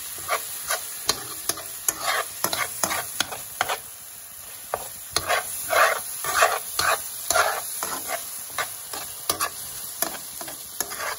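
A spoon scraping and knocking against a frying pan as vegetables and olives are stirred, with a steady frying sizzle underneath. The spoon clicks come a few times a second and are busiest around the middle.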